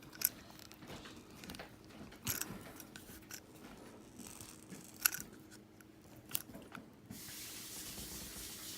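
Handling of plastic pipe in a push-fit quick-connect plumbing fitting: scattered sharp clicks and crackles with some rubbing. A steady hiss starts about seven seconds in.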